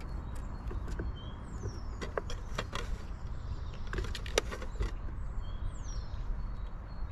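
A scatter of sharp taps and knocks, bunched around two and four seconds in, over a steady low rumble, with a few short, high, falling bird whistles.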